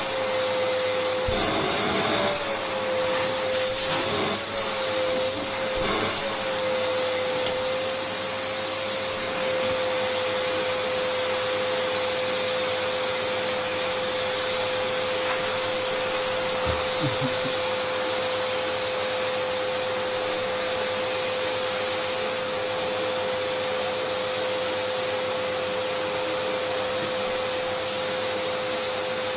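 Vacuum cleaner running steadily with a constant whine. In the first few seconds its pitch wavers and there are a few knocks, then it runs evenly.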